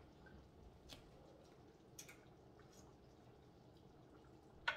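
Near silence in a kitchen, broken by a few faint ticks and one sharper click near the end.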